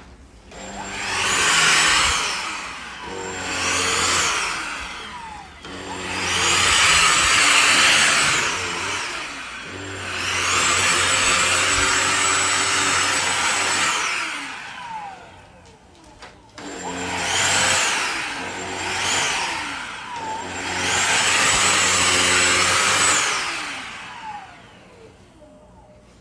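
Kenmore DS1030 cordless stick vacuum's motor being switched on and off several times, in short and longer runs. Each run starts with a high whine that rises to a steady pitch over the rush of air, then the pitch falls away as the motor spins down.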